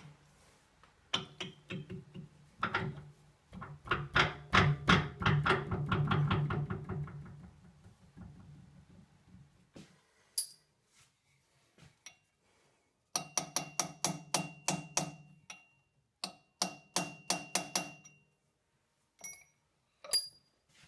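Runs of quick light hammer taps on a crankshaft held in a lathe's four-jaw chuck, several taps a second, each with a short metallic ring, with pauses between the runs. The crankshaft is being tapped over in the slightly loosened jaws to bring its crankpin into line.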